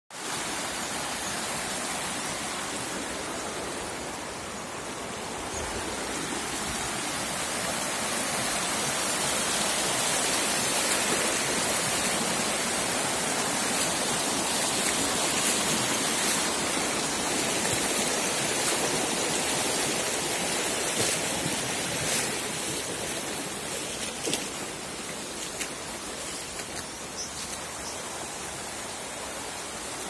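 Water of a shallow spring-fed stream rushing and splashing over rocks and pebbles in a steady wash. It grows louder in the middle and softens over the last few seconds, with a few small splashes near the end.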